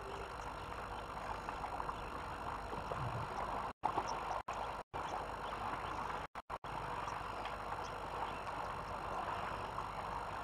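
Steady outdoor background hiss picked up by a bush webcam microphone, with several brief moments around the middle where the sound cuts out completely, as in a live-stream audio dropout.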